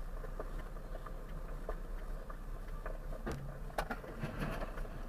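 Steady low road-and-engine rumble of a moving vehicle, picked up by a dashcam inside the cab, with two sharp knocks about three and a half seconds in.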